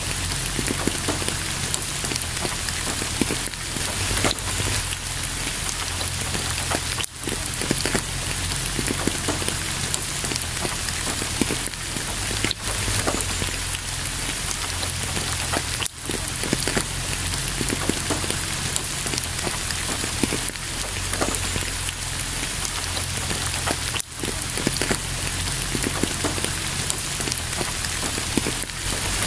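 Steady rain, a dense patter of drops, with no thunder; the level dips briefly a few times.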